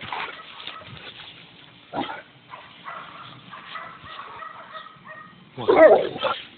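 Bullmastiff growling and grunting in play-wrestling, with scuffling against the phone and a knock about two seconds in. Near the end comes one loud growling bark as the dog lunges.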